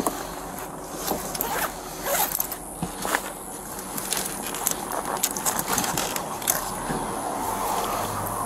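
Rummaging through a vehicle's contents: rustling, clicks and knocks of things being handled and moved around, over steady background noise.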